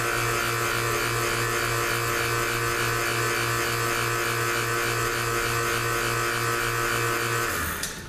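Electric vacuum pump running steadily with a low pulse about four times a second, pulling vacuum on a 4L80E valve body's actuator feed limit valve bore during a vacuum test; the pump stops near the end.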